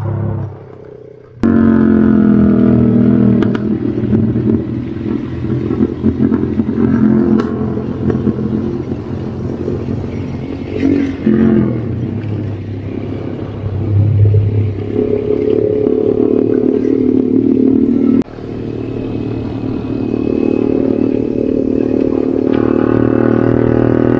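Vehicle engine running steadily while driving a rough offroad track, with some rattling. The sound jumps suddenly louder about a second and a half in and changes abruptly again near 18 seconds.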